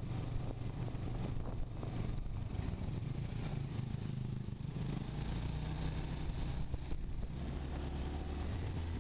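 Motorcycle engine running while riding, with wind and road noise rushing past the microphone; the engine note drops lower about halfway through.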